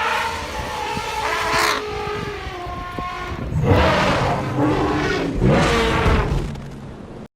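Custom-made creature roars for the sauropod dinosaur Saltasaurus: a series of long calls that glide in pitch. There is a rising cry about a second and a half in, then two loud roars, the loudest a little past the middle. The sound cuts off just before the end.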